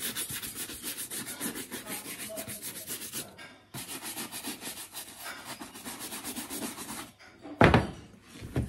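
Brisk back-and-forth brushing of a leather Chelsea boot, about seven quick strokes a second, with a short break a few seconds in. Near the end come two knocks, the first the louder.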